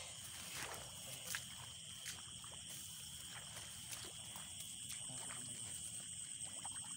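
Steady, high-pitched chorus of night insects in a rice field, with a few faint rustles and knocks from movement in the grass.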